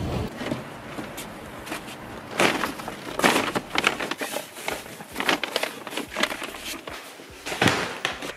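Irregular rustles, clicks and knocks of shopping being handled, with a heavier thump near the end as full paper grocery bags are set down on a kitchen counter.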